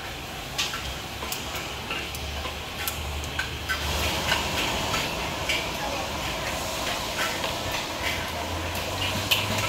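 Busy hawker-stall ambience: scattered clinks and clatter of metal utensils over background chatter and a steady low hum.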